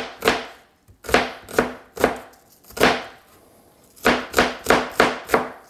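Kitchen knife cutting through a sweet onion onto a cutting board: a series of sharp chops, about three a second, coming in short runs with a brief pause near the start and another around the middle.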